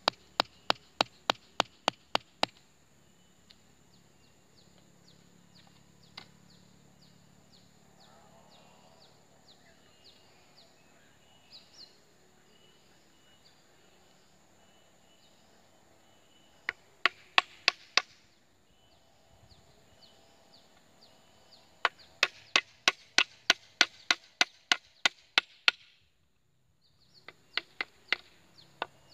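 Hammer driving a nail through a pre-drilled hole in a steel pipe into a wooden handle: runs of sharp strikes, about three a second, in four bursts with pauses between. Insects chirp faintly in the gaps.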